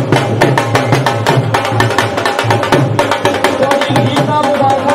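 Dhol drums beaten in a fast, dense, steady rhythm.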